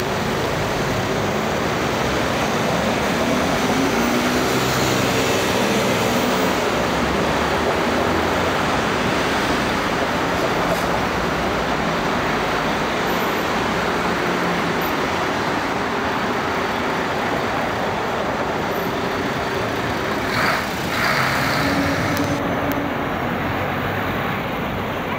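Steady traffic noise on a busy multi-lane city street, with cars passing and engine hum in the first several seconds.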